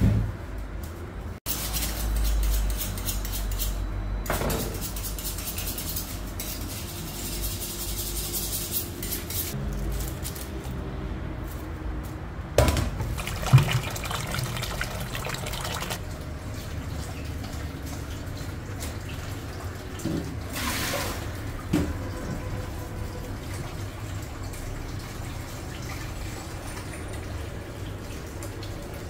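A kitchen tap running water into a stainless steel bowl in a sink as peeled onions are rinsed, with a few knocks and clanks of the metal bowl.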